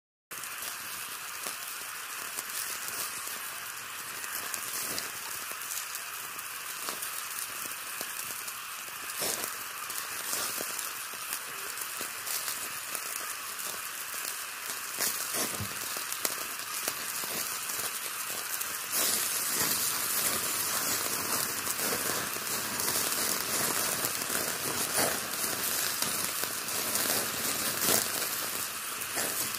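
Meat grilling in a wire grill basket over hot charcoal: a steady sizzling hiss with many small crackles and pops. It gets louder about two-thirds of the way through.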